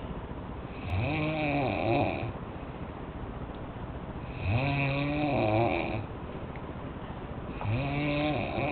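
A sleeping man snoring: three long, low-pitched snores about three and a half seconds apart, each lasting about a second and a half, with quieter breathing between them.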